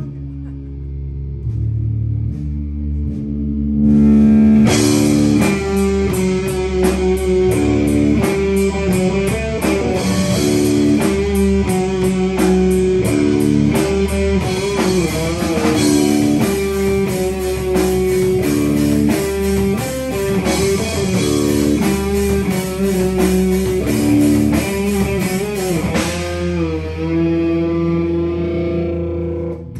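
Rock band playing at full volume: electric guitar, bass guitar and a Mapex drum kit. Guitar and bass hold low notes alone at first, the drums and cymbals come in about four seconds in and drive a steady beat, and near the end the band holds a final chord that rings out and is cut off.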